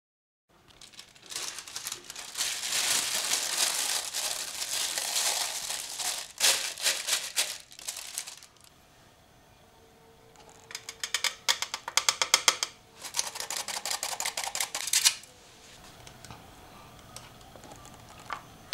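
Stainless hand-crank flour sifter being cranked over a glass bowl: bursts of rapid clicking and scraping rattle with the hiss of flour falling through the mesh, stopping and starting several times.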